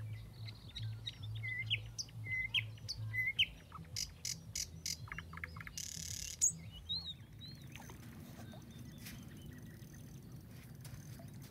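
Songbirds singing: a short chirp repeated several times in the first few seconds, then a quick run of sharp clicking notes and more high chirps in the middle.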